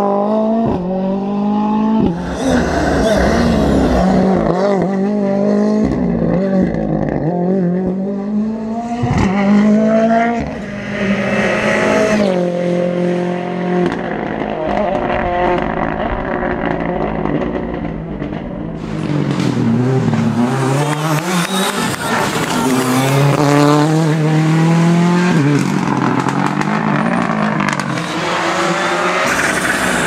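Ford Fiesta R5 rally cars' turbocharged four-cylinder engines accelerating hard through the gears: the pitch climbs and drops sharply again and again at each upshift as the cars come through corners and pass close by.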